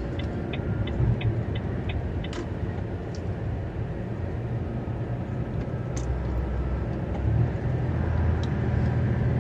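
Truck cab interior: the truck's diesel engine and road noise rumble steadily while the turn-signal indicator ticks about three times a second for the first two seconds. The engine note deepens and grows stronger from about six seconds in.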